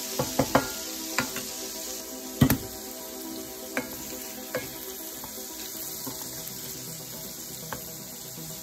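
Minced garlic sizzling in hot oil in a cast-iron skillet, with a wooden spatula knocking against the pan several times in the first second. About two and a half seconds in, a salmon fillet goes into the pan with the loudest knock, and the sizzling carries on with a few lighter clicks of the spatula.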